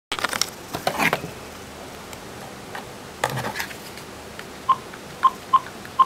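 A few clicks and knocks in the first second and again about three seconds in, then a run of short electronic beeps at a single steady pitch, starting near the end and coming in an uneven rhythm of about three a second.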